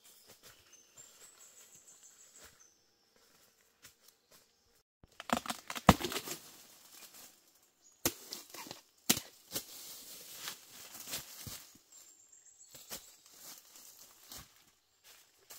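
Dry fallen bamboo leaves and twigs crackling and rustling under footsteps and handling, with a loud burst of crunching and a sharp snap about six seconds in, and a few more sharp cracks soon after.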